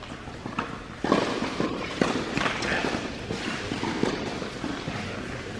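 A racket strikes a tennis ball on a serve about a second in, followed by several more sharp knocks and footsteps on the court, echoing in an indoor tennis hall.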